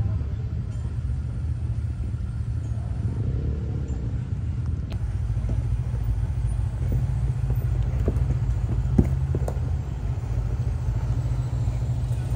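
Jeep Gladiator driving slowly over an off-road trail: a steady low engine and drivetrain rumble, with a handful of sharp knocks in the second half, the loudest about nine seconds in.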